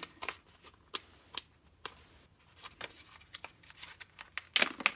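Stiff black foil pouch of incense cones being handled and opened: scattered crisp crackles and clicks, with a louder burst of crinkling near the end.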